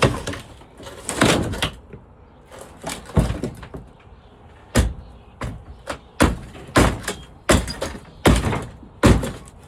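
A series of about a dozen sharp bangs and thuds at irregular intervals, like something being knocked or slammed repeatedly.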